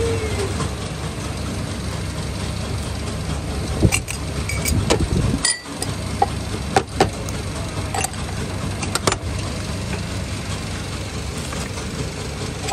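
Steady low drone of workshop machinery running, with several sharp metal knocks and clicks as a metal tool strikes and pries at a steel press mould holding oval wooden brush blocks.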